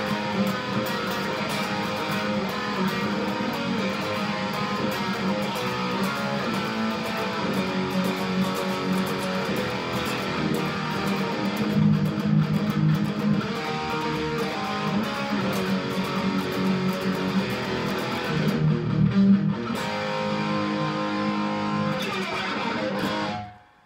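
Electric guitar on a Fender, playing crust-punk riffs continuously at an even level, then dropping away sharply near the end.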